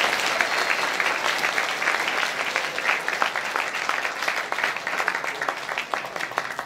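Audience applauding, the clapping gradually thinning and fading away.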